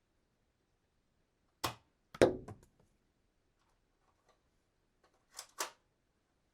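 Gun sound effect: a single click, then about half a second later a sharp shot followed by a few quick rattling clicks. Near the end come two quick cocking clicks.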